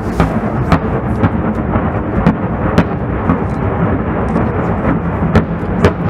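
Distant series of dynamite blasts on a mountainside: a continuous rolling rumble broken by sharp cracks, about two a second.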